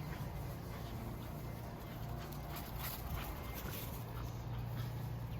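Faint dog sounds, with some soft whimpering, over a steady low hum.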